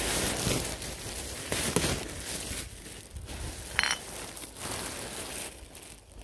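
Plastic rubbish bag and dumped clothes rustling and crinkling as the clothes are handled and stuffed into the bag, loudest in the first two seconds, with a short sharp clink just before four seconds in.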